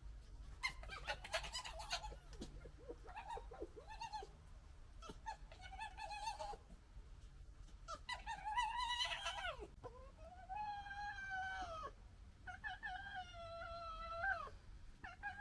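Young red foxes squabbling: a rapid stuttering gekkering chatter in the first couple of seconds, then shorter whining calls, and from about eight seconds in a run of long, wavering whines, each a second or two long.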